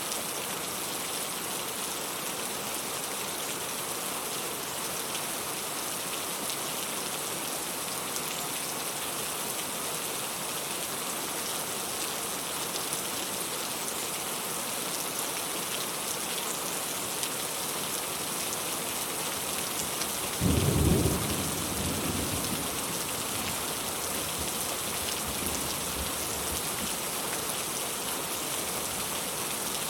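Steady rain falling, with a single clap of thunder about two-thirds of the way through that breaks suddenly and rumbles away over a few seconds.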